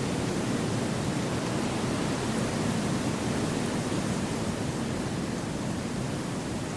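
Wind blowing through forest trees: a steady, even rushing noise with no separate events.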